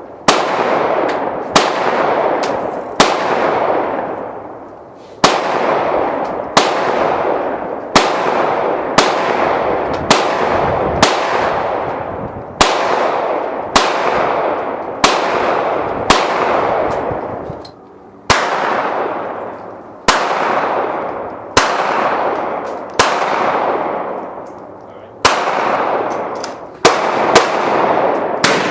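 Gunshots at a shooting range, about twenty rounds fired at a steady pace of roughly one a second, each crack followed by a long echoing tail.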